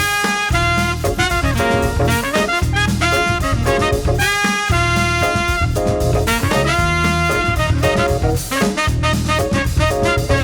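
Background music: an upbeat, swing-style jazz track with brass.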